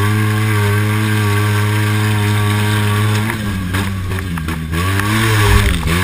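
Polaris RZR S 800 side-by-side's parallel-twin engine under hard throttle: held at steady high revs for about three seconds, then dropping and climbing again several times as the throttle is lifted and reapplied, with a few sharp knocks from the machine over rough ground.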